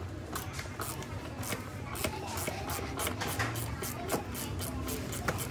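Irregular metallic clicks and handling noise from a socket, extension and ratchet being worked by hand on the 8mm mounting bolts of a scooter's ignition lock set.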